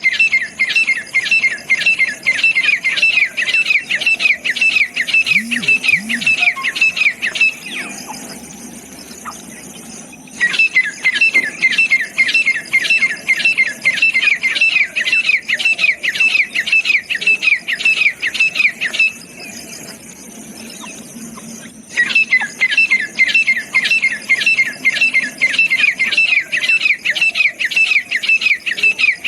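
Francolin calling: long runs of rapid, sharp, downward-slurred notes, about four a second, broken by two short pauses about 8 and 19 seconds in.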